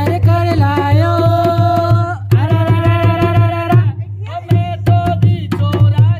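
Rajasthani folk song: a singer holds long, wavering notes over a steady hand-drum beat. After about four seconds the voice breaks into shorter phrases and the drum strokes come through more strongly.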